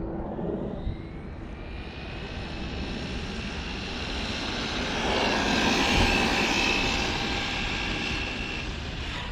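Losi LMT Grave Digger RC monster truck's brushless motor and drivetrain whining through a speed run at 50% throttle limit. The whine rises in pitch and grows louder, peaking about six seconds in and easing off near the end, over steady wind rumble on the microphone.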